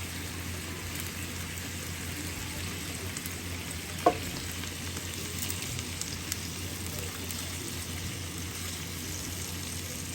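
Food frying in a pan with a steady sizzle. A single short clink about four seconds in.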